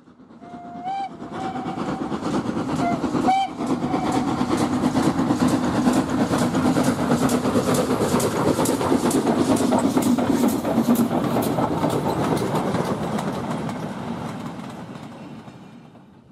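Steam train passing: its whistle gives two short blasts in the first few seconds, then the rhythmic clatter of the wheels over rail joints builds and fades away near the end.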